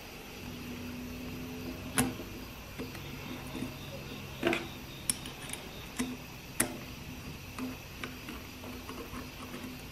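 Small metal transmission valve-body parts (springs, shim and spring seat) clicking as they are handled and fitted: about five sharp clicks, the loudest about two seconds in, over a steady low hum.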